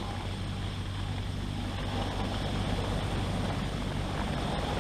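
Large heavy-lift cargo helicopter running: a steady low hum with a fast, even rotor beat under a wash of rotor and wind noise.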